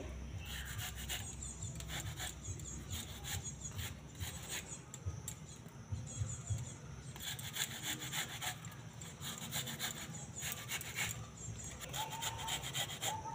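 Wax apple (jamrul) being grated by hand on a metal grater: repeated rasping strokes of the fruit across the blades, in short runs with brief pauses between them.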